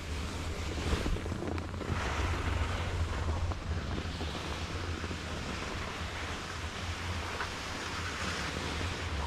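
Wind buffeting a moving action camera's microphone, with the steady hiss of skis sliding over packed snow.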